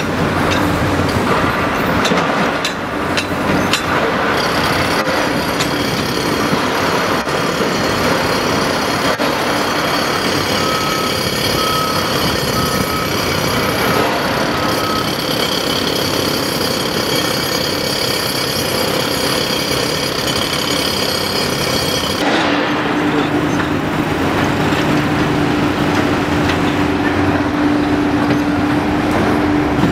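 Cat 330D L hydraulic excavator's diesel engine running under load as it digs and swings, with a few knocks in the first seconds. A backup alarm beeps about six times in the middle. About two-thirds through, the sound changes abruptly to a duller, steady engine drone with a hum.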